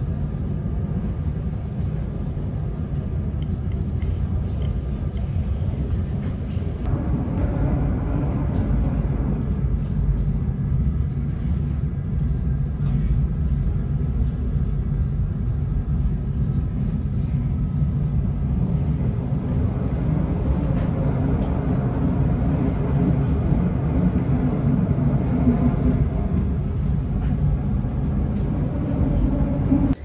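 Steady rumble of a moving passenger train heard from inside the carriage, growing a little louder several seconds in.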